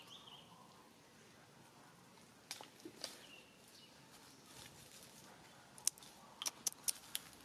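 Dry leaves and twigs crackling as monkeys move about on leaf litter: a few sharp crackles around the middle, then a quick run of about six near the end. One or two faint high squeaks come in between.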